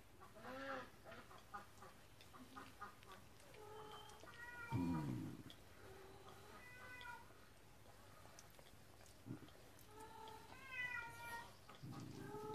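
A pet's short, high whining cries, each bending up and then down in pitch, coming several times with quiet gaps between and clustering near the end. A low rumble comes with a couple of them.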